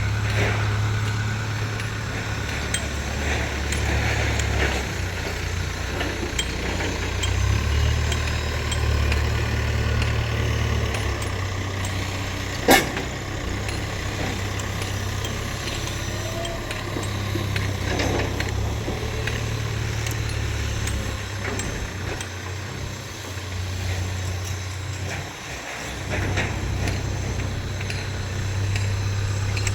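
Heavy diesel engine of a JCB 3DX backhoe loader running under changing load, its low drone swelling and easing as it works. A single sharp metallic clank stands out about thirteen seconds in, with lighter knocks here and there.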